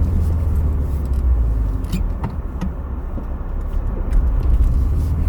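Ford Ranger pickup driving slowly over a rough trail, its steady low engine and drivetrain rumble heard from inside the cab, with a few light knocks and rattles.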